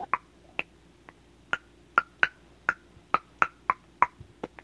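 A quick, uneven run of sharp clicks, about three a second, each with a short ringing pitch.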